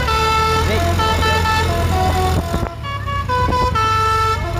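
Multi-tone 'telolet' basuri air horn on a bus playing a tune of held notes that step from pitch to pitch every half second or so, with the engine running underneath. The horn dips briefly about two and a half seconds in, then carries on.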